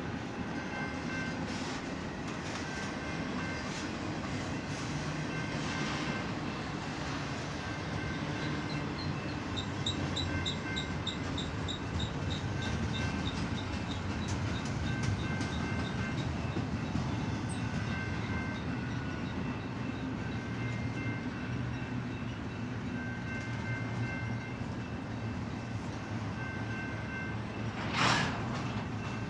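Freight cars of a BNSF train rolling steadily past: a continuous rumble with faint high ringing from the wheels that comes and goes. About ten seconds in comes a short run of rapid high ticks, about four a second, and near the end one loud, sharp burst.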